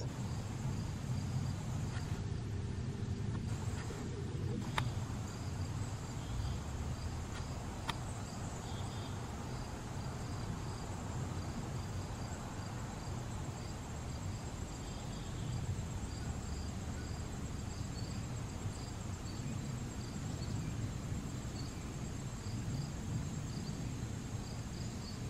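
Low, steady rumble of an Airbus A330-200 airliner's jet engines as it climbs out overhead. Insects chirp throughout in a high, evenly pulsing trill.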